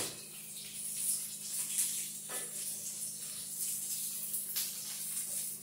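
Food sizzling as it toasts in a frying pan, a steady crackling hiss. A low steady hum runs underneath, with a couple of faint knocks partway through.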